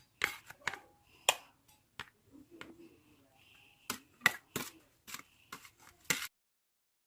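A run of irregular sharp clicks and taps, a dozen or more, some louder than others, that stops abruptly about six seconds in, followed by dead silence.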